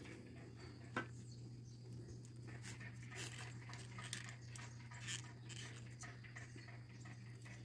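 Faint rustling and light clicks of succulent leaves and flower stalks being handled, with one sharper click about a second in, over a steady low hum.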